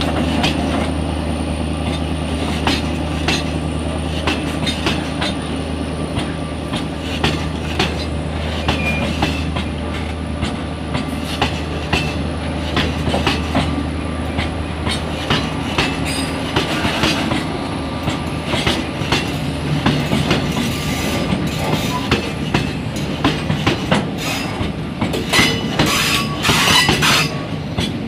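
Train of railway oil tank wagons rolling slowly past, the wheels clicking over the rail joints. A low engine hum fades away in the first ten seconds or so, and from about twenty seconds in the wheel clatter and squealing grow louder.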